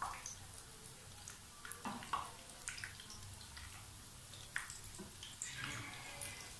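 Breadcrumb-coated bread rolls deep-frying in hot oil in a pan, the oil bubbling and sizzling steadily, with several sharp clicks and scrapes of a slotted spatula against the pan as the rolls are turned.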